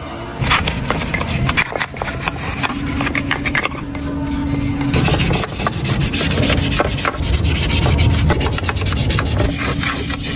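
Quick, repeated scraping and rubbing strokes, like hand sanding or filing on a part, getting denser and louder about halfway through.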